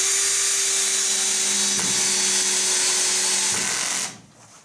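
AEG BS14 G3 Li 14-volt cordless drill-driver running steadily as it drives a 3.5×50 mm wood screw into a timber beam on clutch setting seven, which sinks the screw almost flush. The motor whine changes slightly about three and a half seconds in and stops about four seconds in.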